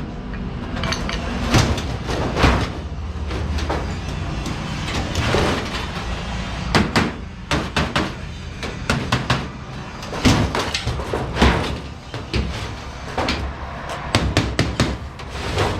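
Sheet metal being hammered and handled: irregular metal knocks and clanks, some ringing briefly, with a run of quick taps near the end.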